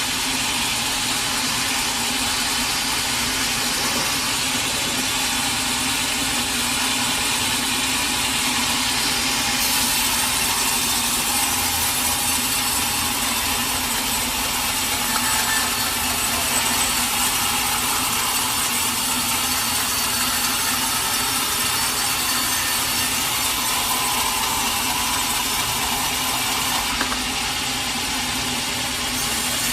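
Sawmill saw cutting through a large teak log, a steady rasping run over a motor's hum; the high hiss of the cut grows stronger about ten seconds in and eases a little near the end.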